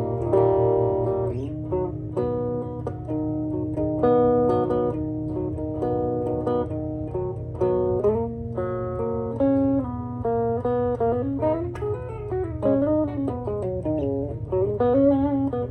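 Electric guitar played through a 1965 Fender Champ tube amp with its controls at 4: picked notes and chords, then bent notes with vibrato in the second half, over a steady low hum.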